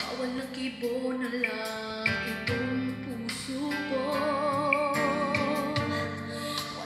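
Recorded music with a singing voice played through Yamaha NS-10MMT bookshelf speakers driven by a Sansui AU-117 II amplifier. A long held note with vibrato comes in about four seconds in.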